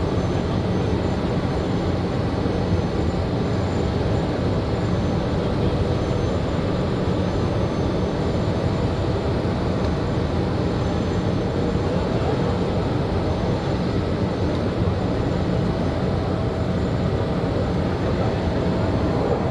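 Boeing 777-9 airliner with its two General Electric GE9X turbofans flying past: steady, even jet engine noise.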